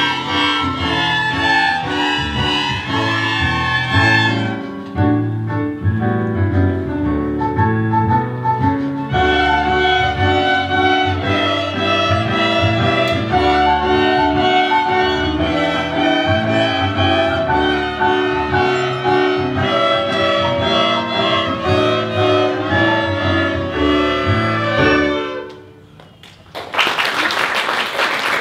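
A school string ensemble of violins and cellos playing a piece with a steady pulse. It finishes about 25 seconds in, and after a brief pause an audience starts applauding.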